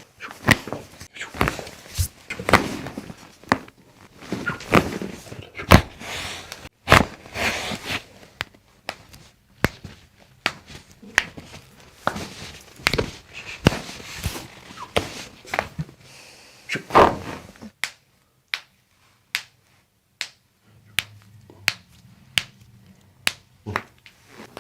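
A rapid, irregular series of sharp cracks, pops and thuds: joints cavitating during chiropractic adjustments, with hands and body hitting the treatment table. After about 18 seconds the sounds thin to single clicks spaced a little under a second apart.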